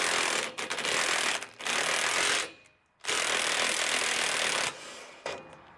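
Impact wrench hammering on a rusted, seized nut in three bursts, with a short pause before the last one, which stops near the end. The nut is frozen from years of sitting outdoors.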